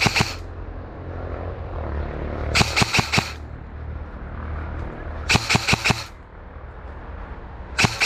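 G&G M4 airsoft rifle firing short bursts of about half a dozen rapid shots, roughly every two and a half seconds: suppressive fire. A steady low rumble runs underneath.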